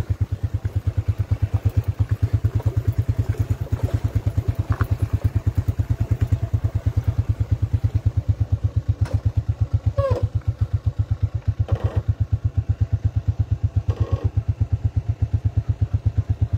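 Motorcycle engine running at low revs, a steady, even putter of several beats a second that holds the same pace throughout.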